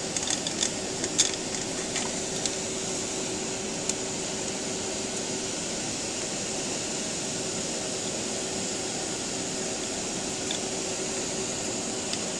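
Small sharp clicks of a screwdriver and wire ends at the screw terminals of a switch-mode power supply's terminal block as the AC cable is fastened: several in the first four seconds and a couple near the end. Under them runs a steady, fan-like room hum and hiss.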